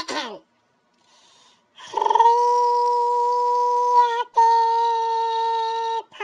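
A high, voice-like wail holding two long, steady notes of about two seconds each, starting about two seconds in, with a short break between them.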